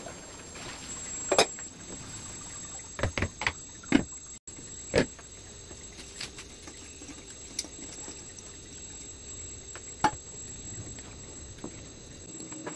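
Kitchen handling sounds at a wok of chicken curry: a handful of sharp knocks and clinks of the spatula and plate against the pan, most in the first five seconds and one more near the end, over a faint steady hiss.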